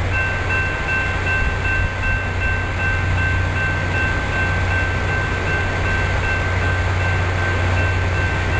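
LORAM RG311 rail grinder working the track at a distance: a steady low diesel drone under a wash of noise, with two thin steady high tones.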